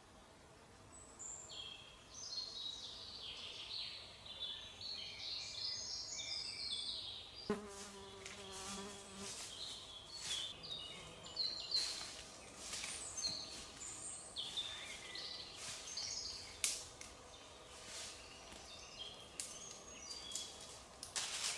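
Forest songbirds singing in many short, high chirps. About seven seconds in, a flying insect buzzes past for a couple of seconds. In the second half the chirps continue among scattered sharp clicks and crackles.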